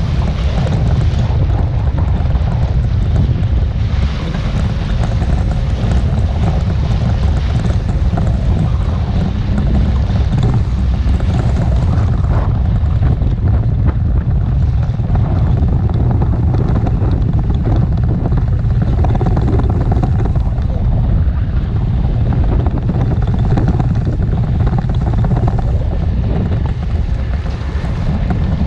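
Wind rumbling on the microphone over a small motorboat's engine running steadily as the boat moves through choppy water.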